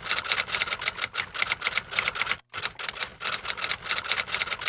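Fast, continuous typewriter keystrokes, many sharp clacks a second, with one short break about halfway through.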